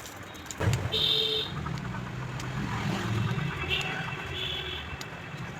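An engine running with a low, steady drone that starts about half a second in, with a couple of short high chirps over it.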